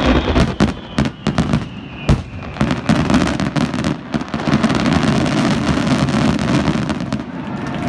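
Fireworks display: a rapid barrage of shell bursts in the first two or three seconds, then a dense, continuous run of crackling and booming.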